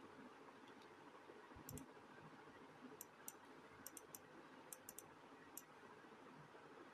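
Near silence with a faint hiss and a dozen or so faint, sharp clicks between about a second and a half and five and a half seconds in, some in quick pairs and threes.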